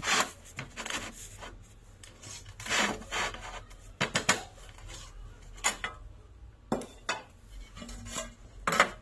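Short, separate scratching strokes of a pencil drawn across a glazed porcelain tile while marking cut lines, with a sharper, louder scrape or clink of the tile being moved near the end.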